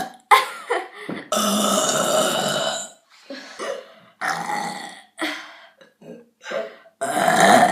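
A woman burping loudly over and over. A long burp of nearly two seconds comes about a second in, then shorter burps, and another long loud burp near the end.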